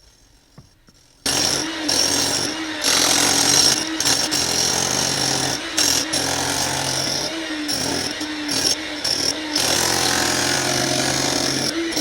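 Hilti rotary hammer chipping out the pool's gunite concrete along the crack. It starts about a second in and runs hard, with several brief let-offs of the trigger.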